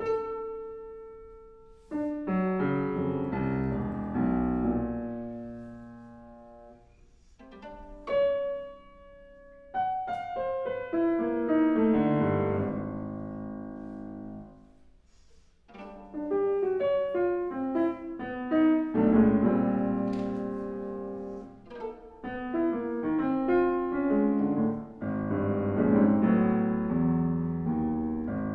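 Live piano playing chords and melody in phrases, each note striking and fading, with short pauses between phrases.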